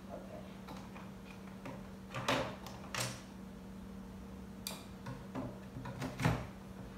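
Aluminium leg tubes of a portable folding table knocking and clicking against the metal frame as they are handled and fitted: a scatter of short light knocks, with the loudest coming near the end.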